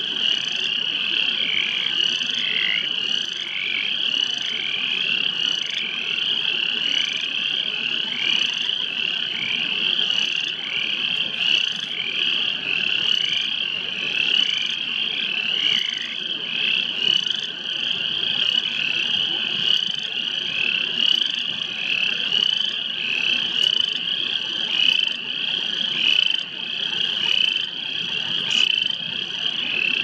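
A dense chorus of frogs calling, many short rising calls overlapping several times a second, steady throughout.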